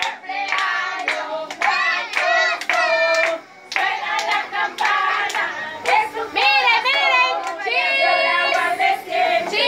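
A group of adults and children singing a birthday song together, with hands clapping in a steady beat.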